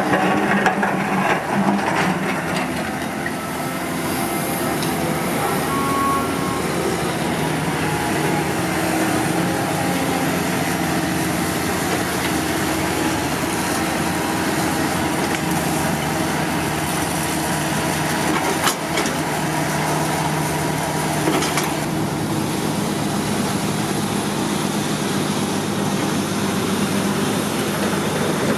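Caterpillar 320D GC excavator's diesel engine running steadily under load while its bucket digs and scoops dirt, with a couple of sharp knocks about two-thirds of the way through.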